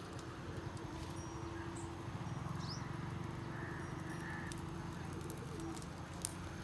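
Outdoor farmyard ambience: a steady low hum with faint bird chirps, and a single sharp click near the end.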